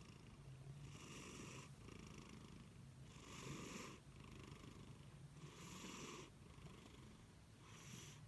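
A sleeping house cat snoring softly: four breathy rasps, about every two and a half seconds, over a steady low rumble.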